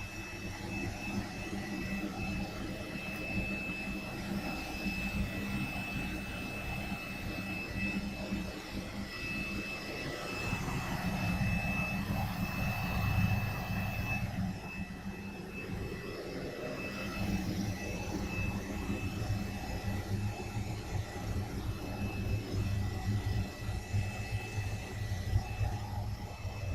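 Steam boiler's burner firing: a steady roar with a deep hum and a thin, steady high whine, swelling a little around the middle.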